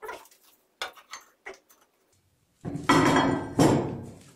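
A few light knocks, then near the end two loud bouts of steel clattering and scraping as a flat steel bar is laid down against the steel base plate and workbench.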